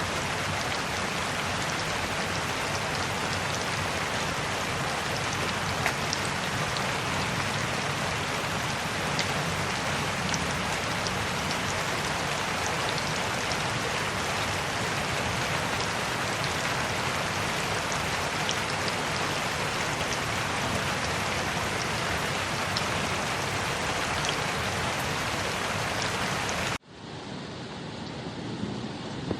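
Steady rain falling, an even hiss with scattered drop ticks. About 27 s in it cuts off abruptly, and a quieter, duller rain-like noise follows.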